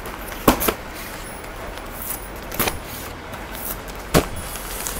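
Plastic-wrapped bedsheet packs being flipped through by hand: rustling plastic with a few sharp slaps, two about half a second in, one midway and one near the end.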